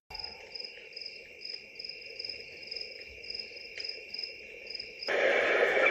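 Recorded cricket chirping, a nature sound played through the small speaker of a Foryond sunrise alarm clock, pulsing steadily about two to three times a second. It starts abruptly, and about five seconds in it switches to a louder, fuller sound.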